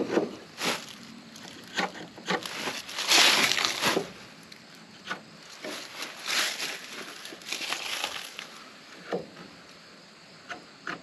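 Scattered light knocks and rustling scrapes as a small wooden jig block is handled against rough-sawn poplar siding boards, with footsteps shifting in dry leaf litter. The longest, loudest scraping rustle comes about three seconds in.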